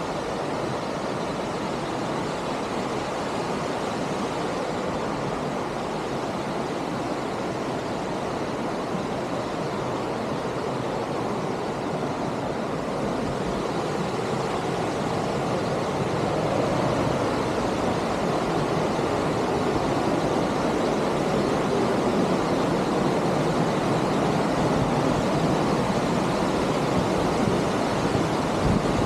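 Waterfall's steady rush of falling water, growing a little louder about halfway through.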